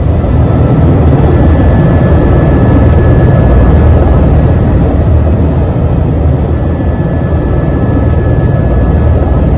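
Helicopter in flight, heard from inside the cabin: a loud, steady drone of engine and rotor, with a faint high whine running through it.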